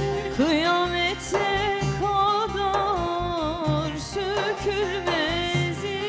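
A woman sings a Turkish folk song (türkü) in long, gliding, ornamented notes without clear words, to the plucked accompaniment of a bağlama (saz).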